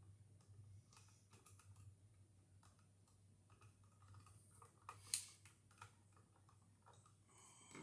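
Faint, scattered light clicks and taps of small hand work on a wall outlet and its wiring, with one sharper click about five seconds in, over a faint low hum.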